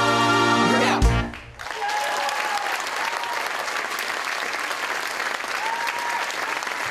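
Stage musical number ending on a held chord and a final loud hit about a second in, then audience applause.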